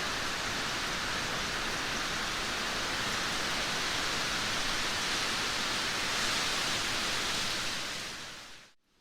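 Heavy downpour of rain, a steady dense hiss, which fades out quickly near the end into a brief moment of near silence.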